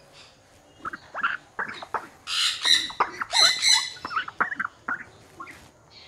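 Parrots chirping and whistling in many short calls, with two loud harsh squawks about two and three and a half seconds in.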